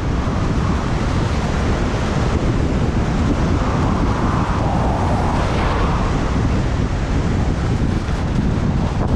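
Wind buffeting the microphone of a skier's head- or mouth-mounted camera while skiing fast down a groomed piste, over the steady hiss of the skis running on packed snow. The ski noise swells for a couple of seconds around the middle.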